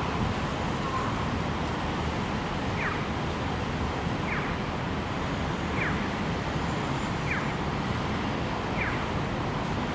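Steady city traffic and gusting wind noise. From about three seconds in, a short falling chirp repeats evenly about every one and a half seconds.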